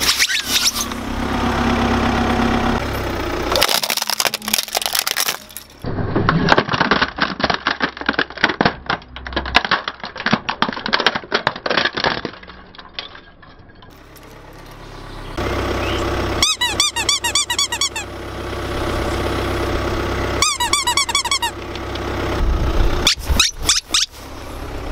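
A car tyre rolling slowly over toys and crushing them. Plastic crackles and snaps in a long run of sharp cracks, and rubber toys being squashed give out wavering squeaks in two short bursts.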